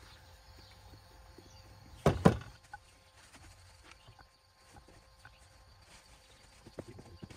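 One loud thump about two seconds in, then a few faint knocks, as slices of wholemeal bread are laid into a frying pan on a portable gas camping stove.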